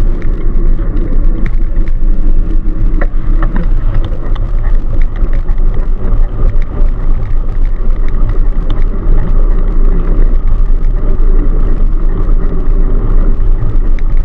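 Steady, loud wind rumble on a cyclist's camera microphone, mixed with the road noise of lorries passing close by.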